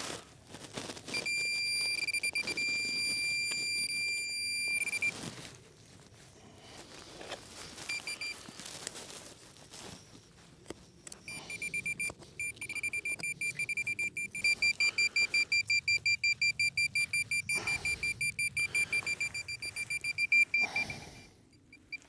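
A Minelab Pro-Find 40 pinpointer sounding its high, shrill alarm tone over buried metal. The tone holds steady for a few seconds, stops, then comes back and pulses rapidly as the probe works the target in the hole. Scraping and knocks of digging fall in between.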